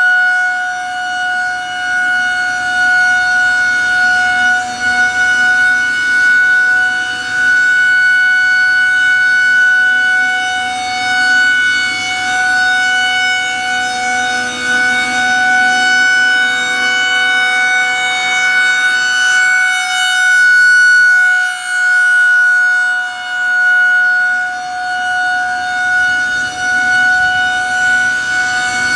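Federal Signal 2001-130 electromechanical outdoor warning siren sounding a steady, unchanging single tone for its routine weekly test, its loudness swelling and dipping every few seconds.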